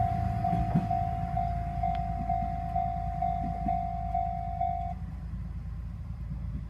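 Level-crossing electronic warning bell ringing in a steady beat of about two strokes a second, then cutting off about five seconds in. Underneath, the low rumble of a passing diesel railcar.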